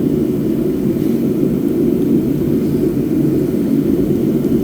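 Steady low rumbling background noise that does not change, with no distinct events in it.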